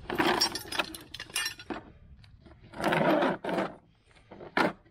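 Handling noises: rattling and scraping with quick clicks, a longer rustling scrape about three seconds in, and a single sharp click near the end.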